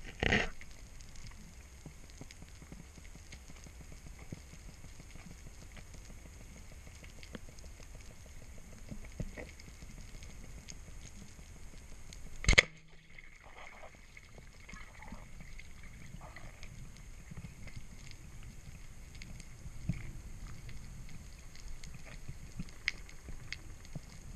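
Underwater sound picked up by a diver's camera: a steady low wash of water with scattered faint clicks, and one sharp, loud knock about halfway through, with a smaller knock right at the start.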